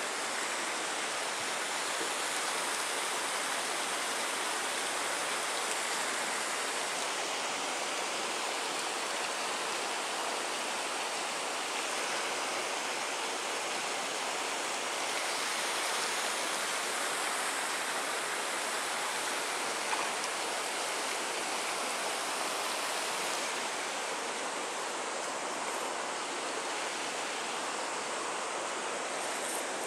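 Steady rushing of running water, an even hiss that does not let up.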